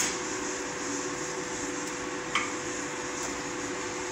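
Steady rushing noise of a coal forge's air blast and fire, with a faint steady hum. A single short clink, like tongs touching metal, comes about two and a half seconds in.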